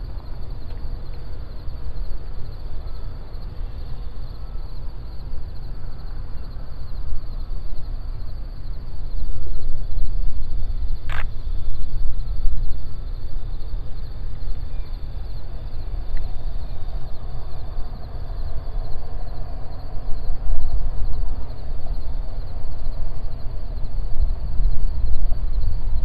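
Wind buffeting an outdoor microphone: a gusting low rumble that rises and falls. A single sharp click comes about eleven seconds in.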